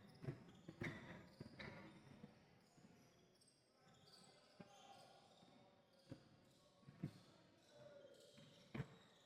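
Basketballs bouncing on the court: scattered, irregular thuds, about seven in all, over faint voices in the hall.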